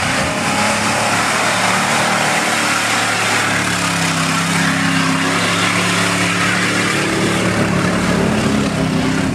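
Pickup truck engine running hard under load as the truck ploughs through deep mud, with a dense rush of tyre and mud noise; the engine pitch steps up about four seconds in.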